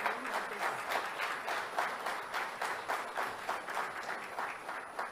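Audience applauding, the claps falling into a steady rhythm of about three to four a second.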